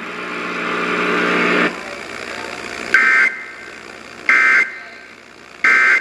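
Emergency Alert System end-of-message from a radio's speaker: a steady buzzing tone that stops about a second and a half in, then three short two-pitched bursts of SAME digital data screech, a little over a second apart.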